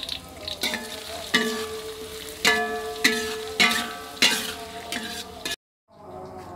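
Chopped onion and green onion sizzling in oil in a metal wok, stirred with a metal spatula that strikes and scrapes the wok about five times, the wok ringing after each strike. The sound drops out for a moment near the end.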